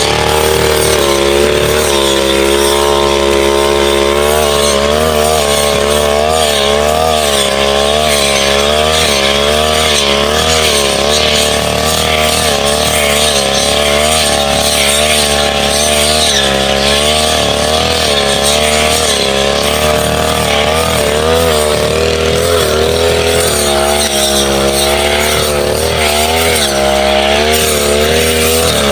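Brush cutter engine running hard, its pitch wavering up and down as it cuts through small woody saplings and scrub.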